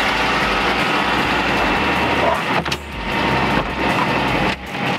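Vehicle engine idling steadily, dipping briefly twice.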